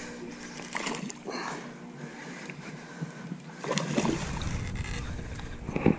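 Water splashing around the boat as a hooked ladyfish fights at the surface, with a few short splashes about a second in and again near four seconds.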